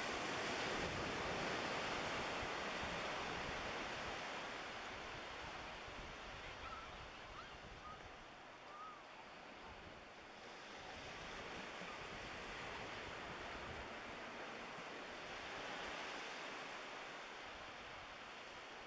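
Small waves washing onto the shore, a steady hiss that swells in surges: loudest at the start, then again about ten seconds in and near the end. Wind buffets the microphone underneath.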